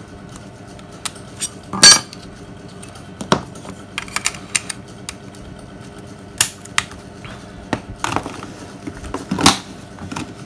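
Scattered clicks and knocks of a Nokia 6300 mobile phone being handled, its casing tapping and fingers working on it, the loudest knock about two seconds in.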